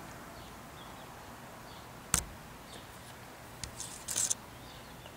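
Quiet outdoor background with one sharp click about two seconds in, a fainter tick a little later, and a short rustling hiss near the end.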